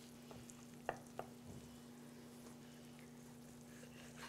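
Faint knife sounds as a roast is carved along its rib bones on a wooden cutting board: a few soft clicks and scrapes about a second in, over a steady low hum.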